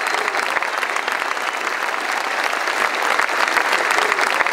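Large audience applauding, a dense, steady clatter of clapping.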